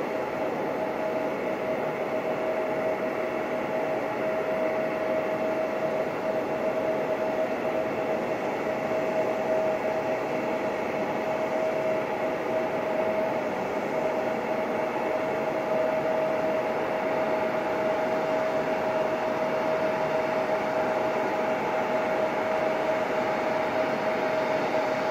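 Turbofan engines of an Embraer regional jet at taxi idle: a steady whine, one constant tone over a broad rushing noise, growing slightly louder as the jet approaches.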